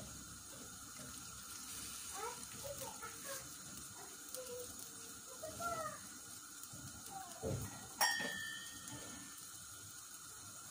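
Beef and chickpea stew in tomato sauce bubbling faintly in a stainless steel pan on the stove: a scatter of small pops and blips. About eight seconds in there is one sharp clink with a short ring.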